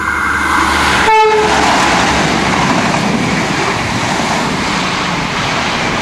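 Passenger train passing close at speed: a loud, steady rush of wheels on rails and wind noise. A horn tone is heard at the start and stops within the first second.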